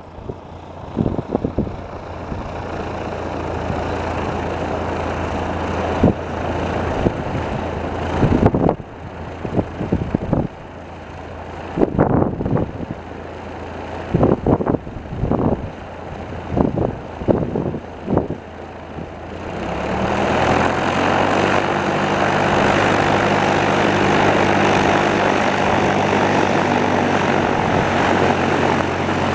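Light aircraft's piston engine droning, with gusts of wind buffeting the microphone over the first two-thirds. About two-thirds of the way in, a louder, steady engine drone sets in and holds.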